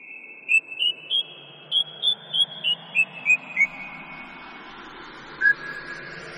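Song intro: a melody of short whistle notes, each trailing an echo. The notes climb in pitch over the first two seconds and then step back down, with one lower note near the end, over a faint low drone.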